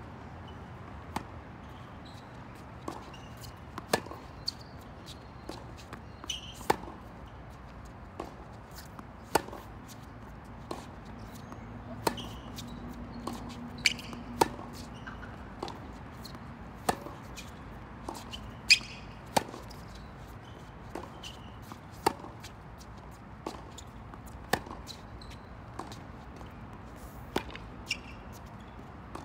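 Tennis balls struck by rackets in a rally on a hard court: a sharp pop every couple of seconds, with softer ball bounces in between.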